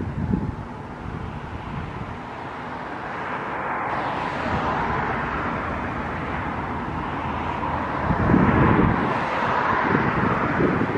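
Canadian Pacific diesel locomotives approaching slowly, their engine and rolling noise growing louder from about four seconds in. Gusts of wind buffet the microphone, the strongest about eight seconds in.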